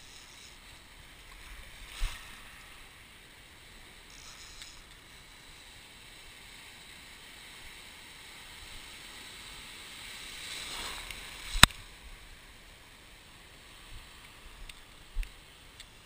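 Shallow surf washing around a wading angler, swelling as a wave comes through about ten seconds in. Sharp knocks stand out over the water, one about two seconds in and the loudest just before twelve seconds.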